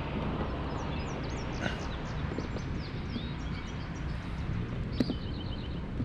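Birds chirping in the woods below, in many short high calls, with a quick run of about six even chirps about five seconds in. Under them runs a steady low wind rumble on the microphone, and a sharp click comes just before the run of chirps.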